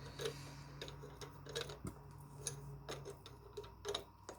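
Faint, irregular small metallic clicks and taps of hand tools and screws being handled while a starter generator is unbolted.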